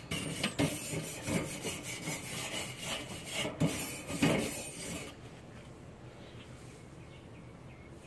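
Grill brush scrubbing a hot cast iron grill grate in quick back-and-forth scraping strokes, cleaning the preheated grate before cooking; the scraping stops about five seconds in.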